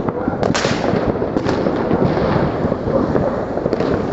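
Many firecrackers and fireworks going off together in a dense, continuous crackle of overlapping pops and bangs.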